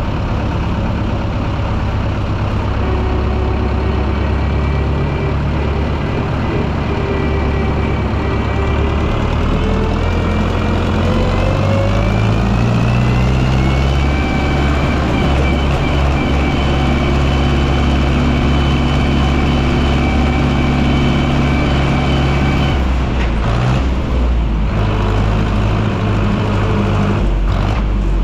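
Zetor tractor's diesel engine running, its pitch rising between about nine and fourteen seconds in as the engine speeds up, then holding steady at the higher speed.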